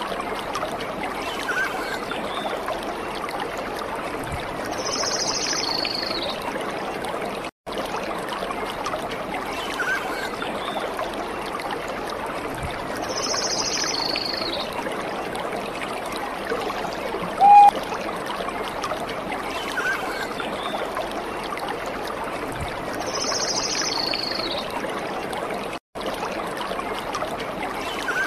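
Steady trickling of running water, like a small stream, with short high chirps and one louder short note now and then. The same pattern repeats about every nine seconds, and the sound drops out for an instant twice.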